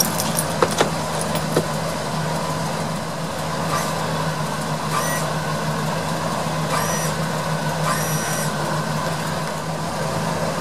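A motor on the motorhome runs steadily with a low hum and cuts off right at the end. A few short high chirps sound over it partway through.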